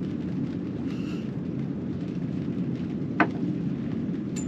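Steady low rumble of wind on the microphone. About three seconds in there is one sharp knock of something set down on the wooden table.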